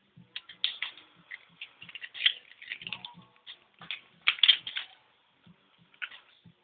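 Irregular small clicks and taps of the plastic parts of a Samsung SGH-G600 mobile phone being handled and taken apart, with a denser run of clicks a little past the middle.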